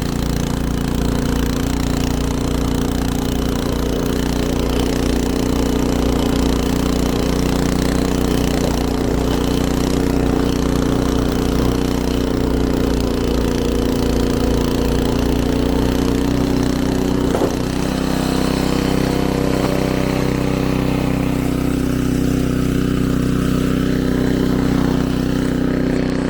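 Gasoline snowblower engine running steadily under load, with a slight change in its note about two-thirds of the way through.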